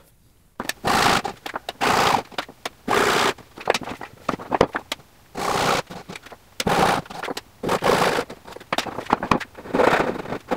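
A hand tool cutting wood in short, irregular scraping strokes, with small clicks between them.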